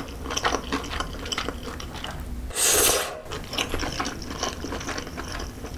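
Close-miked wet chewing of a mouthful of spicy Buldak fire-noodles, with many small irregular mouth clicks. A brief louder rushing sound comes about two and a half seconds in.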